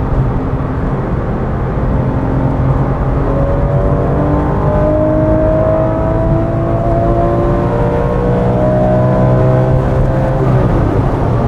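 Porsche 996 GT3's naturally aspirated flat-six, heard from inside the cabin at speed, its note climbing slowly and steadily as the car accelerates, then dipping briefly near the end before picking up again.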